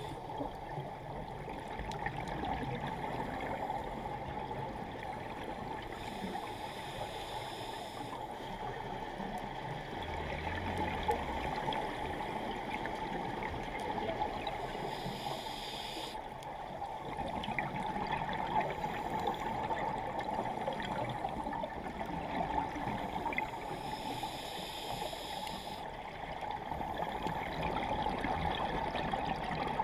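Underwater scuba-diving sound: gurgling exhaled bubbles from divers' regulators over a steady water hiss, swelling and easing every several seconds with the breathing.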